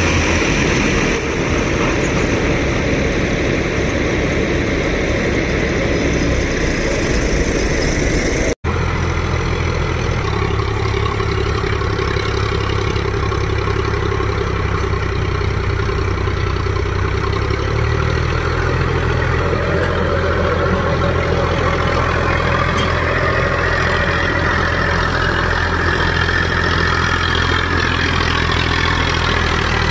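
Diesel engines running steadily: first the combine harvester and tractor during unloading, then, after a brief cut, the Sonalika DI-740 III tractor's diesel engine working under load as it hauls a loaded trolley across soft, rutted ground. Just past halfway the engine note steps up slightly.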